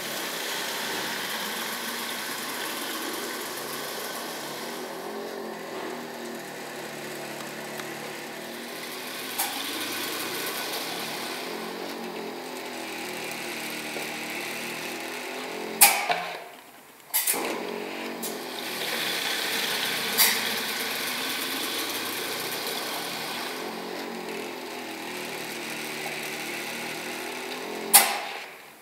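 Filamatic DAB-A-32-2 air-operated liquid filling machine running: a steady mechanical and pneumatic noise whose tone slowly rises and falls as it cycles, with a few sharp clacks, one a little past halfway and one near the end.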